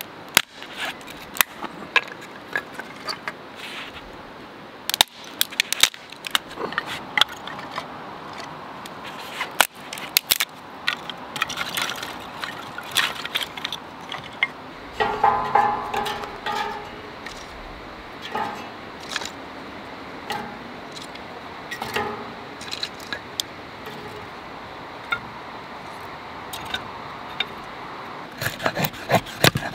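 Thin kindling sticks being split and pulled apart by hand, then laid crosswise in a steel fire pit. Irregular sharp cracks and snaps of splitting wood, a short creak about halfway through, and a run of wooden clatter near the end as the sticks are set down.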